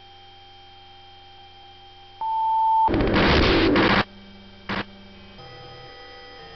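Electronic droning tones, then a held beep about two seconds in. A loud burst of static follows for about a second, then a short blip, and the drone shifts to new steady tones.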